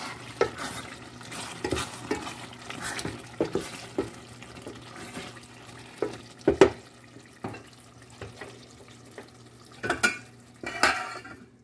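Metal ladle knocking and scraping against a steel pot of simmering doro wat stew, with the stew sizzling underneath. The loudest knocks come about six and a half seconds in and again near the end.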